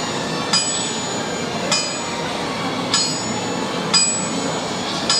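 Something metal, bell-like, struck about once a second, five times in a row, each strike ringing briefly with a bright, high tone, over steady background noise.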